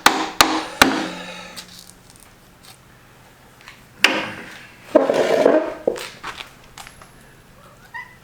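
Three quick hammer blows on the rusted-in-place tailstock of a Monarch 10EE lathe, each ringing on briefly in the metal. About four seconds in comes a softer knock, then a second or so of scraping as the stuck tailstock is worked loose.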